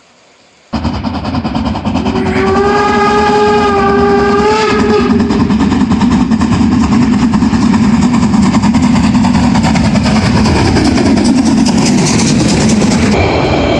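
Narrow-gauge steam locomotive of the Harz railway sounding its whistle, one steady blast of about three seconds, over the loud rumble and rattle of the running train, which carries on steadily after the whistle stops.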